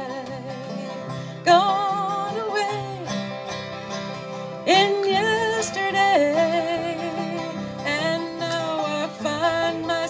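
Acoustic string band, banjo and acoustic guitars, playing a country-folk song, with a woman's voice holding long, wavering notes over the picking, each entering loudly and then fading.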